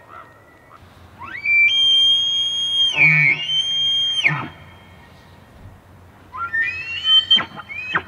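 Bull elk bugling in the rut: a long high whistle that climbs, holds and then falls away, with low grunts underneath partway through. A second bugle starts near the end, rising and then breaking into a few short falling yelps.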